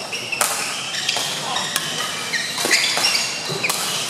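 Badminton rally: several sharp cracks of rackets hitting the shuttlecock, with short high squeaks of court shoes on the court mat between them, in a reverberant hall.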